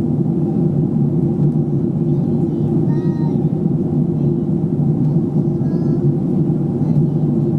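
Steady low drone inside a jet airliner's cabin at cruise: engine and airflow noise heard from a window seat.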